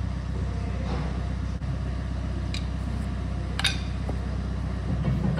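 Sharp metallic clicks and taps, three or four of them, from a screwdriver worked against an army truck's drum brake, over a steady low mechanical hum.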